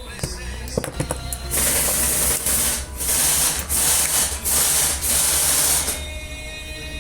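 Pressurized air hissing out in about six short blasts in quick succession, as when blowing out brake-valve parts. A few light tool clicks come just before the blasts.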